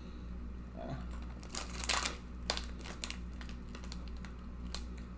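Plastic snack packet crinkling as it is handled, with a cluster of crackles about two seconds in.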